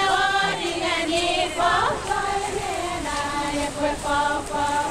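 A group of women chanting together in unison for a traditional Satawal women's dance, held sung notes that step up and down in pitch.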